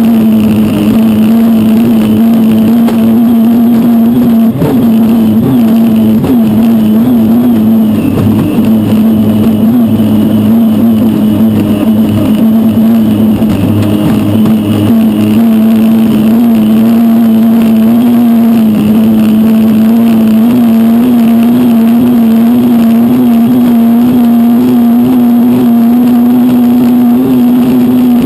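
Turbine engine of the #37 Beacon Plumbing unlimited hydroplane running hard at racing speed, heard from onboard: a loud, steady drone with a strong low tone, over the rush of water and spray.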